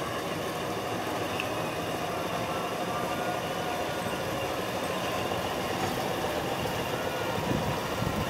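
Diesel shunting locomotive's engine running steadily at low revs as it moves slowly coupled to passenger coaches.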